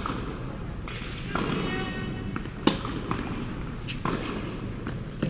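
Tennis ball struck by rackets during a baseline rally: three sharp pops about 2.7 seconds apart, at the start, in the middle and at the end, echoing in a large indoor hall, over a low murmur of voices.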